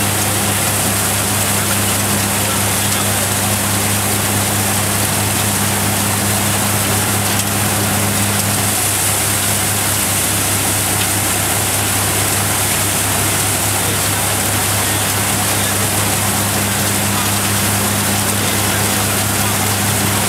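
Valasumani multicrop thresher running steadily while threshing white maize: a constant rushing noise over a steady low hum.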